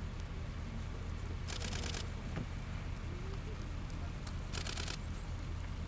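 A steady low engine hum, with two short hissing bursts about three seconds apart, each lasting about half a second.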